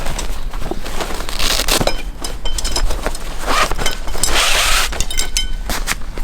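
Camping gear being handled: a run of knocks and light clinks, with two longer bursts of rustling about a second and a half in and again around four seconds in.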